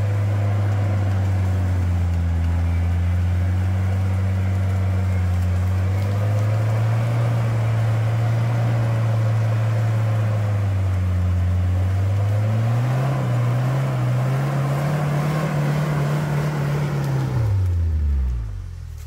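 Off-road 4x4 vehicle's engine running steadily under load. Its pitch rises about two-thirds of the way through, then falls away as the sound drops off sharply near the end.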